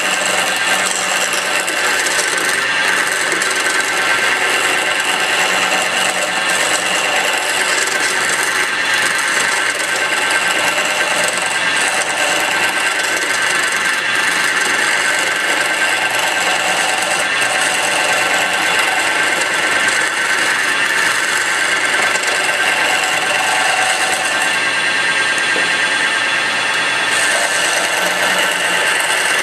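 Small wood lathe running while a hand-held chisel cuts a spinning wooden spindle: a continuous, even scraping of shavings being peeled off, with the lathe's motor hum beneath.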